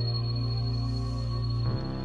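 Background music: ambient, new-age-style sustained chords, with a chord change near the end.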